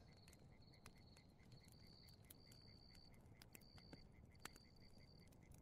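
Very faint background of crickets trilling in repeated short bursts, with a few scattered small pops of a crackling campfire, the loudest about four and a half seconds in.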